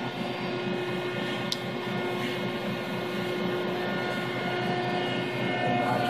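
Hydraulic power unit of a 1995 Niagara 350-ton press brake running idle: a steady mechanical hum with a constant whine over it. A brief high tick comes about one and a half seconds in.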